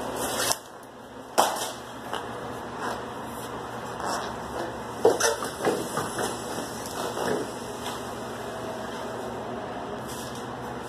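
Irregular knocks and clatter of hands-on work on a wooden shipping-crate base as tie-down straps are taken off a motorcycle, with sharper hits about a second and a half in and about five seconds in.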